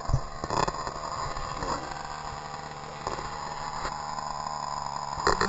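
Small nitro engine of an RC monster truck idling steadily, with a few knocks about half a second in and again near the end.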